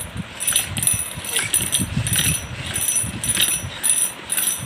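Plastic pull-along walking-dog toy being pulled along, its wheels and jointed legs clacking in a steady rhythm of about two clacks a second.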